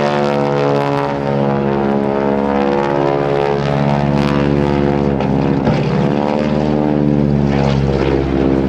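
North American T-6 Texan flying aerobatics overhead, its nine-cylinder Pratt & Whitney R-1340 Wasp radial engine and propeller running loud and steady. The pitch dips and then climbs back up about five to six seconds in.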